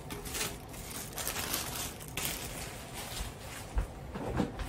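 Plastic bag of frozen crinkle-cut fries rustling and crinkling as the fries are shaken out into an air fryer basket, for about the first two seconds. After that it goes quieter, with a couple of soft low thumps near the end.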